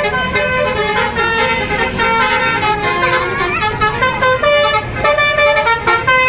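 Tour bus 'telolet' Basuri multi-tone air horn playing a rapid tune of short, steady-pitched notes, with a low rumble underneath.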